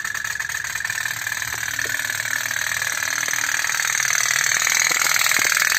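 Toy pop-pop steam boat, its water-filled boiler heated by a small candle, running with a fast, even putt-putt burr that grows a little louder.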